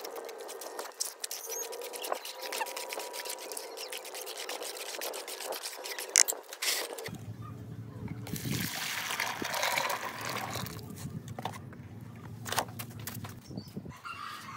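A hand swishing and splashing through a thin, watery cement slurry in a plastic basin. About halfway through, the slurry is poured from the basin into a plastic bucket with a splashing pour lasting a couple of seconds, followed by a few light knocks.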